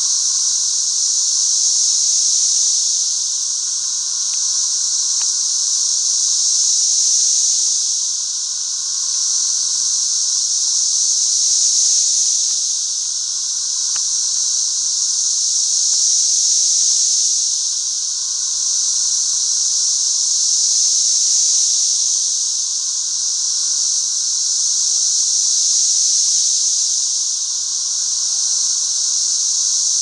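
Chorus of thousands of 13-year periodical cicadas: a loud, steady high-pitched drone that swells and fades in slow waves every four to five seconds.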